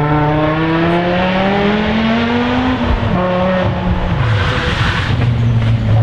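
Rally car engine under hard acceleration, its pitch rising steadily for about three seconds. It drops sharply at a gear change, falls again a second later, and then runs at a steadier, lower pitch.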